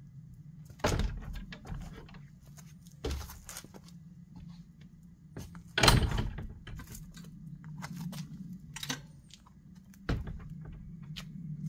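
Knocks, clicks and rattles of an old road bike being wheeled out over pavers and set against a wooden shed door. About four sharp knocks stand out, the loudest about six seconds in.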